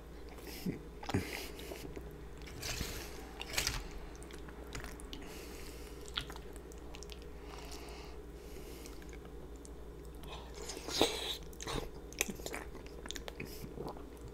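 Close-miked chewing of a cheesy lasagna mouthful, with soft wet mouth sounds and scattered sharper clicks, the loudest about eleven seconds in.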